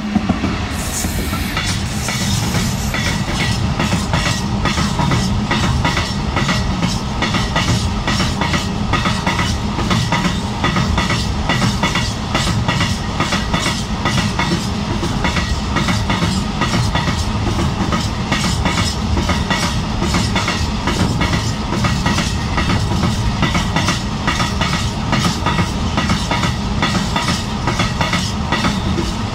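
A Class 66 diesel freight locomotive passes close by at the start, its two-stroke V12 engine running, followed by a long train of loaded open coal wagons rolling past. The wheels clack rhythmically over the rail joints above a steady rumble.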